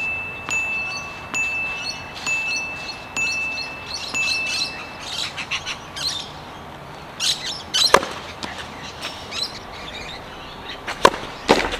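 A clear, high, chime-like tone repeating about once a second, then stopping about five seconds in. A tennis serve follows: the racket strikes the ball with a sharp crack about eight seconds in, and another sharp knock comes about three seconds later.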